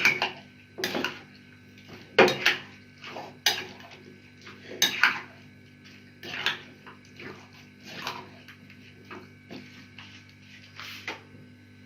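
A spoon knocking and scraping against a mixing bowl as chopped fruit is stirred into yogurt, in about a dozen irregular clinks spaced roughly a second apart.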